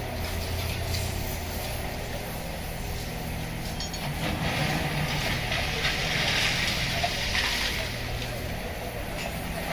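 Work machinery at a railway track-switching site, its engines running steadily with a low hum. A hiss rises over it from about four seconds in and fades about four seconds later.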